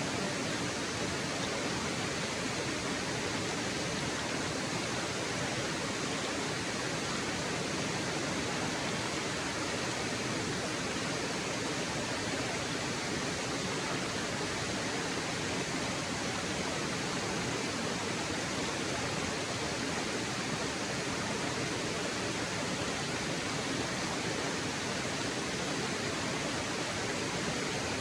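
Waterfall: falling water making a steady, even rush with no breaks or changes.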